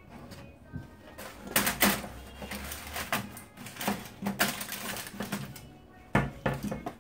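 Aluminium foil crinkling and food being shifted about on a foil-lined baking tray: irregular sharp clicks and rustles, loudest a couple of times, over a steady low hum.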